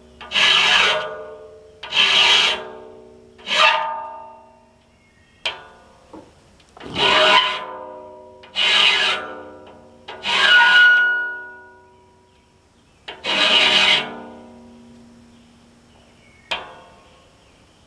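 A hand file rasps across the steel teeth of a large circular sawmill blade in seven separate strokes with uneven pauses, sharpening the teeth by hand. After each stroke the big blade rings with a metallic tone that fades away. Two short, light clicks fall between the strokes.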